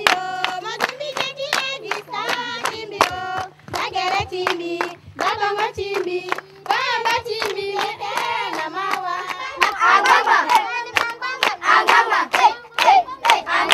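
A group of children and women singing together to steady rhythmic hand-clapping. From about ten seconds in, more voices join and the singing gets louder.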